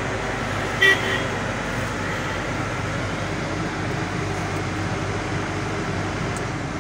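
Steady truck engine and road noise heard from inside the moving cab, with one short horn toot about a second in.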